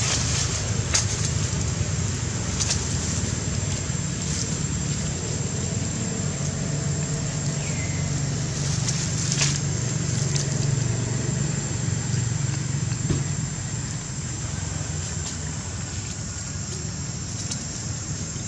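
Dry leaf litter crackling now and then as monkeys move over it, over a steady low rumble.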